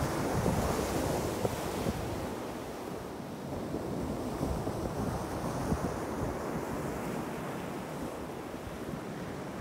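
Gusty coastal wind buffeting the microphone over a steady wash of North Sea surf; the gusts ease a little after the first two or three seconds.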